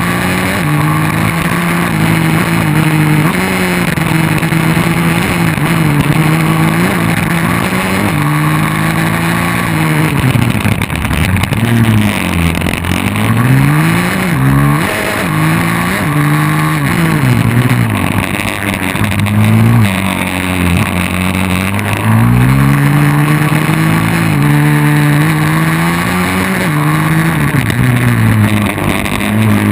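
150 cc pit bike's single-cylinder four-stroke engine at racing revs, heard close up from the bike itself: it holds high revs, drops off into each corner and climbs again on the way out, over and over.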